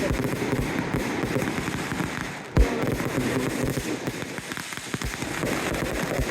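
Fireworks going off: a dense crackling patter over repeated low booms, with one sharp, loud bang about two and a half seconds in.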